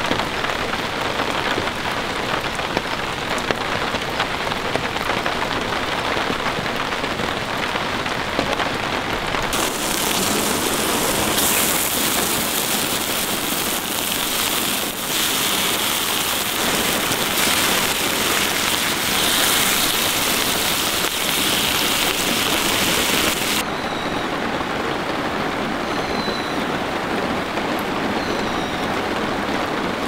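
Steady rain in thick drops falling on a camping tarp, a constant hiss. From about ten seconds in until about twenty-four seconds it turns brighter and harsher, then settles back.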